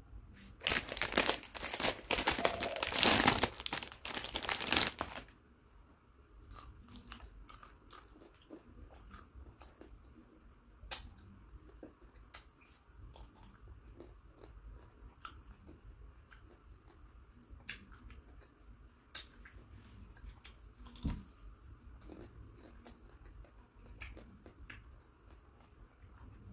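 A plastic ice cream wrapper crinkles loudly as it is torn open, for about the first five seconds. Then come scattered crisp cracks and chewing as bites are taken from a Top Ten chocolate-coated ice cream bar with nut pieces.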